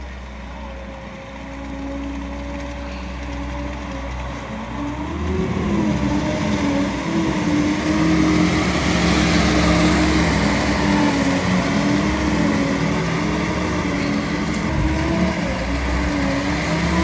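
Fat Truck amphibious off-road vehicle's engine under load, heard from inside the cab: it picks up about five seconds in and then runs hard, its engine speed rising and falling as it is driven.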